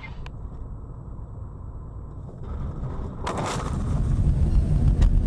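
Car road noise from inside the cabin: a low rumble of engine and tyres. A brief noisy burst comes a little past three seconds in, and the rumble is louder after it.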